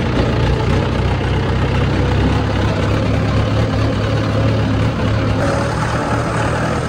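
Tractor's diesel engine running steadily close up, heard from the driver's seat, with water splashing around the wheels as the tractor fords a river channel.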